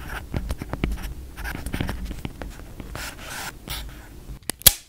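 Stylus writing on a tablet: a run of quick scratchy pen strokes as a word is written and boxed, with one sharp click near the end.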